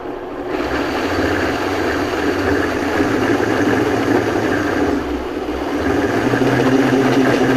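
Vitamix high-powered blender running, its motor whirring steadily as it purees a thick chickpea, quinoa and coconut-milk veggie-burger mixture. It gets louder about half a second in and dips briefly around five seconds in.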